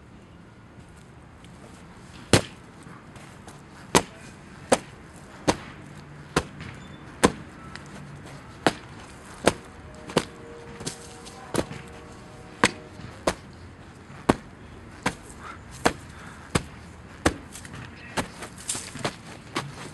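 A boot stomping repeatedly on a pumpkin, smashing it apart: about twenty sharp impacts roughly a second apart, starting a couple of seconds in and coming a little faster near the end.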